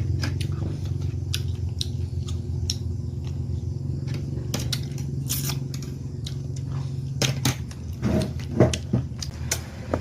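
Eating sounds: chewing and the clicks and knocks of a spoon and fork on a plate, with a louder run of knocks near the end, over a steady low hum.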